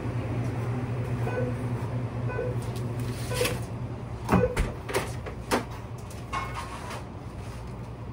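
A walk-in cooler door being shut and metal sheet pans being handled on a rack: a few sharp knocks and clanks, the loudest about halfway through, over a steady low hum.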